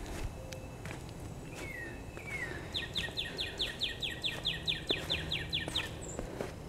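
A songbird singing: a couple of slower falling notes, then a fast, even run of about seventeen sharply down-slurred whistled notes lasting about three seconds.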